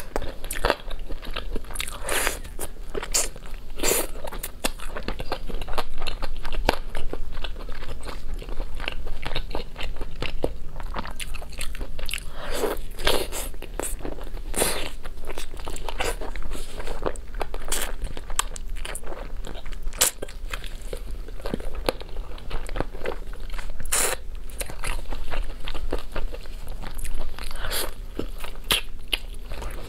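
A person eating sauce-coated chicken wings: biting, chewing and pulling meat off the bones, with many sharp, irregular mouth clicks and crunches.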